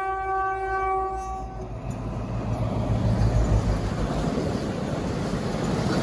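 Class 60 diesel locomotive's horn, its note ending about a second and a half in, followed by the rumble and clatter of the locomotive and its empty flat wagons running past on the line.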